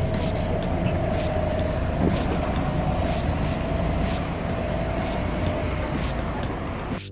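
City bus engine running at a stop: a steady low rumble with a thin, steady hum above it.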